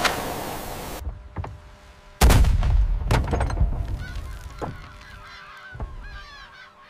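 A muzzle-loading cannon fires once about two seconds in, the loudest sound here. Seagulls then call repeatedly as the flock scatters.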